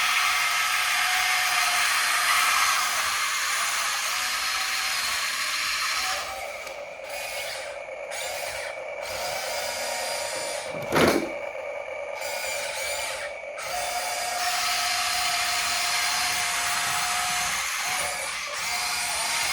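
Huina remote-control excavator toy's electric motors and gears whining as it works, the pitch shifting partway through. A single loud knock about eleven seconds in.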